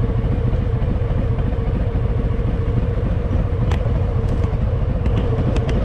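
Harley-Davidson Fat Boy's V-twin engine running at a steady pace while the motorcycle is ridden, with a few faint clicks in the second half.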